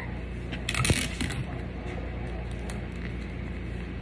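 Crinkling and rustling of a disposable baby diaper's plastic backing as it is handled, with a louder crackle about a second in, over a steady low hum.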